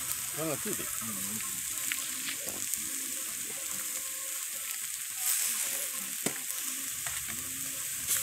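Ram rib meat sizzling on a hot perforated steel grill plate: a steady hiss with a few sharp pops.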